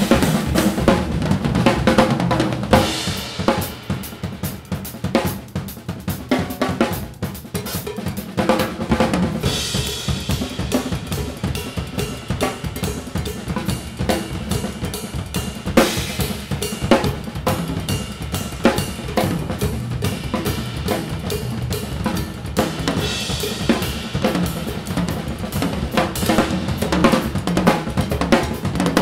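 Two acoustic drum kits played together in an improvised duet: snare, toms and bass drum with cymbals and hi-hat. The playing is lighter from about four seconds in and builds again with cymbals from about ten seconds.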